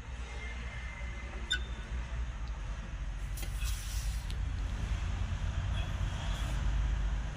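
Mahindra Jeeto BS6 diesel mini truck's engine idling with a steady low rumble, with a couple of light clicks about a second and a half in and a brief hiss around the middle.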